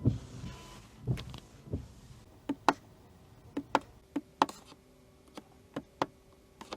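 About a dozen sharp, irregular clicks and taps from the BMW i3's cabin controls being worked, some in quick pairs, fading to fainter clicks near the end.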